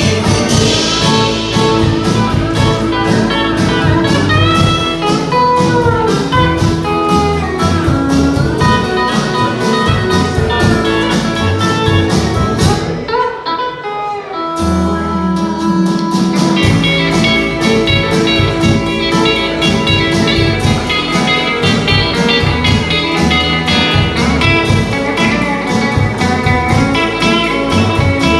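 Instrumental break of a live country band: steel guitar playing sliding, bending notes over upright bass and strummed guitars. The band drops back briefly about 13 seconds in, then picks up again.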